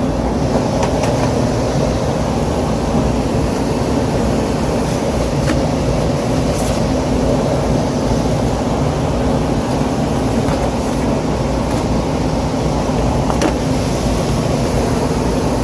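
Trane rooftop HVAC unit running, its fans and motor making a steady whir with a low hum, with a few faint clicks.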